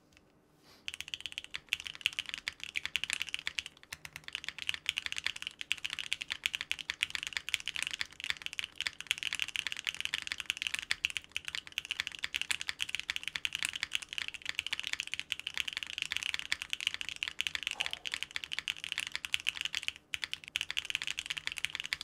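Continuous fast typing on a Sequence 65% custom mechanical keyboard with factory-lubed stock Wuque Aurora switches and PBT keycaps, O-ring mounted on an FR4 plate with polyfill inside: many keystrokes in quick succession, starting about a second in, with a brief pause near the end.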